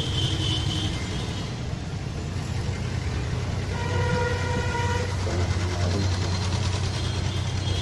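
A steady low hum under even background noise, with one held pitched tone lasting just over a second about four seconds in.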